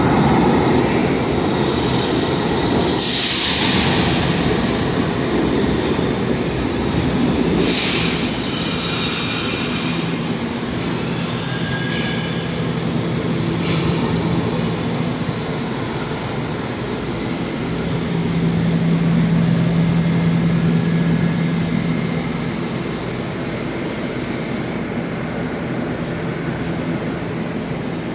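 R68 subway train pulling into the station on a far track, its wheels squealing in a few high screeches over the first ten seconds. It then stands with a steady low hum as the rumble dies down.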